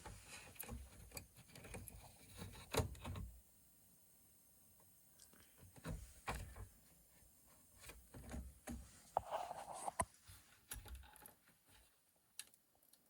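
Scattered light clicks, knocks and scrapes of handling in a small room, the loudest about three seconds in.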